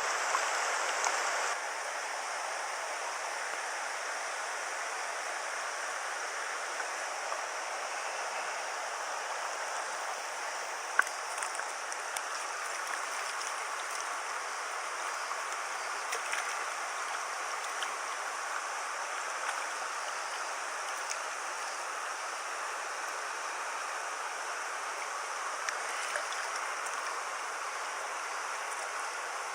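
River water flowing steadily, an even rushing sound of the current, with one sharp tick about eleven seconds in.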